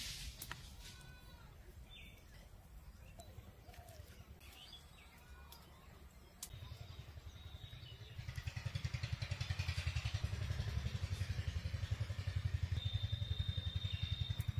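A small engine running with a fast, even putter, growing louder about halfway through and stopping abruptly at the end. Faint bird chirps early on and a thin high whistle near the end.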